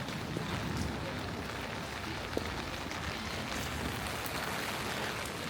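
Steady rain falling, an even hiss with a few scattered drip ticks.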